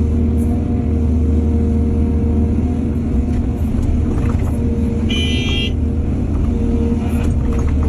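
Excavator's diesel engine running with a steady deep drone. A brief high-pitched tone sounds for under a second about five seconds in.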